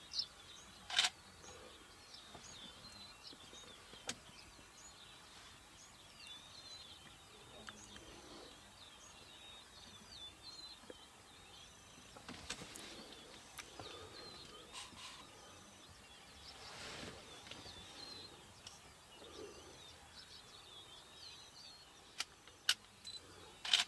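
Dawn chorus of many birds calling and twittering at once over a faint open-air background hiss. A few short sharp clicks stand out about a second in and again near the end.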